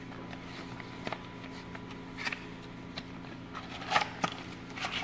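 A small cardboard box being handled and opened by hand: light rustling and scraping with a few sharp taps, the loudest about two seconds in and around four seconds in, over a steady low hum.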